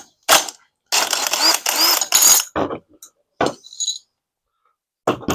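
A socket wrench working on the flywheel nut of a Predator 224cc engine. There are separate clicks and knocks, and a dense run of rapid ratcheting that starts about a second in and lasts over a second.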